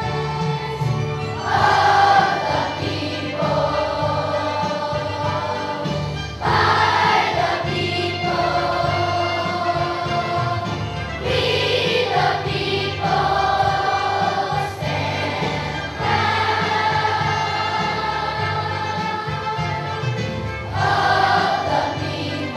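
Children's choir singing with an accompaniment underneath, in long phrases of held notes.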